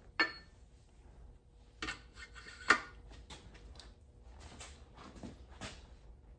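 Light metallic clinks and taps as a steel valve-seat driver is set down over a new exhaust valve seat in a cast-iron engine block. The sharpest clink comes nearly three seconds in, with fainter ticks after it.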